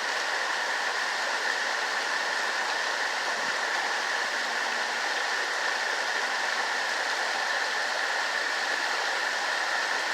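Small creek waterfall at normal flow, water pouring over rocks in a steady, even rush.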